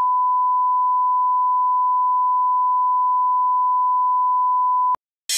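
Broadcast line-up tone played with colour bars: one steady, pure, high beep that holds unchanged and then cuts off abruptly about five seconds in.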